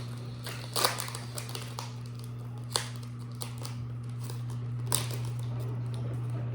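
Foil Pokémon booster pack being opened and the cards handled: crinkling, tearing and a few sharp clicks, about a second in, near three seconds and near five seconds, over a steady low hum.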